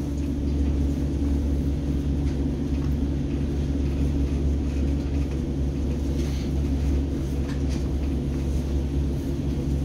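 Hamburg U-Bahn DT5 train running, heard from inside the car: a steady rumble with an even low hum and a few faint ticks.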